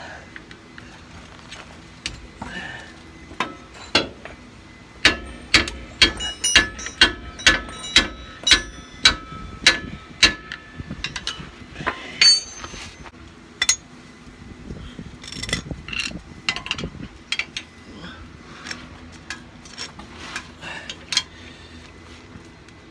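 Metal-on-metal taps with a slight ring at a rear strut's lower mount, about two a second for several seconds, then scattered lighter clicks, as the new strut is worked into line with the control arm under a floor jack.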